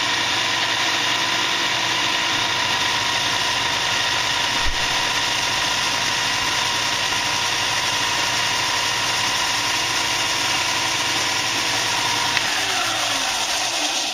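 WEN 6502 belt and disc sander running steadily with a loud, even motor hum. About twelve seconds in it is switched off, and its pitch falls as it winds down.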